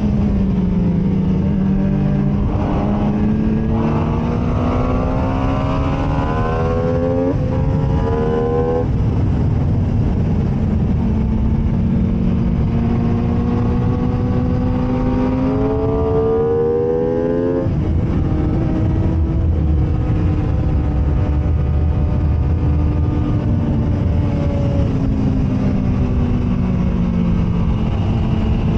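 MV Agusta F3 inline three-cylinder sport bike engine at race pace. The revs fall at the start, then climb hard through the gears, with sudden pitch drops at quick upshifts about 7, 9 and 18 seconds in.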